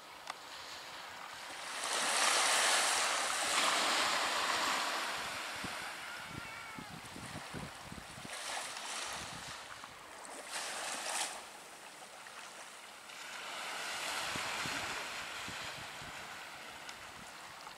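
Small waves washing on the shore, a hiss that swells and fades, once a couple of seconds in and again later, with shorter surges between. Light wind buffets the microphone now and then.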